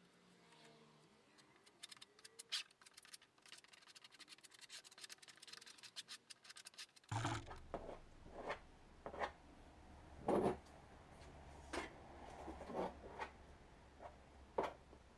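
Hand scraping on a fibreglass boat hardtop panel: quick rapid scratching at first, then from about seven seconds in, separate scraping strokes over a low steady hum.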